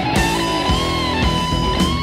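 Rock music with electric guitar: a sustained, gliding lead guitar line over drums.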